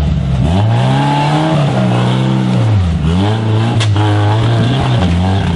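Off-road crawler's engine revving up and down under throttle, its pitch climbing, holding, dropping sharply about three seconds in, then climbing again.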